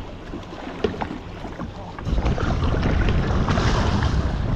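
Wind buffeting the microphone over water sloshing against a boat hull, turning much louder and rougher about two seconds in.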